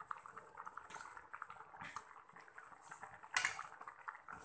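Eggplant, tomato and chilli simmering and bubbling in a steel kadai while a steel ladle stirs it, scraping and clinking against the pan. One louder clink of the ladle comes about three and a half seconds in.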